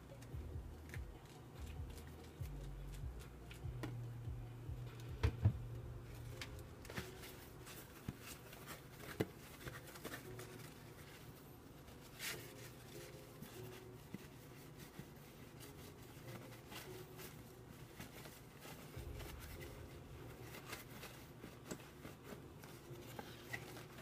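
Faint, scattered crackles and small clicks of a leopard gecko chewing a large cricket, slowly, with a couple of louder clicks about five seconds in, over a low hum that comes and goes.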